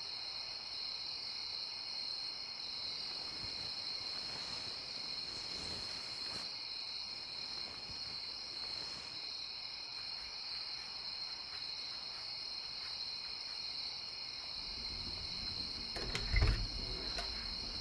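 Steady, high-pitched chirring of a night-time insect chorus. Near the end a door handle clicks and the door opens with a brief low thud.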